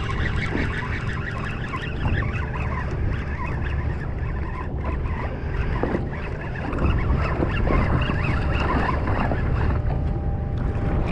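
Wind and boat noise: a steady low rumble with a rushing hiss, a little louder after about seven seconds.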